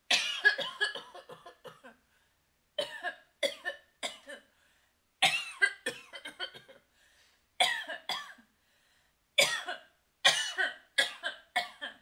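A woman coughing in about six fits, each a quick run of sharp coughs lasting a second or two, with silent gaps between the fits.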